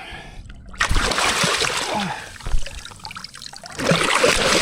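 Water splashing as a hooked snook thrashes at the surface while being landed. There are two bouts of splashing: one about a second in and a longer one near the end.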